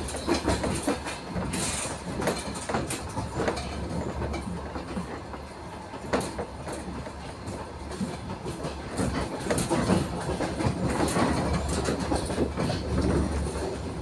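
A moving train heard from inside the carriage: a steady rumble of wheels on the rails, with scattered sharp clicks and knocks as the wheels cross rail joints.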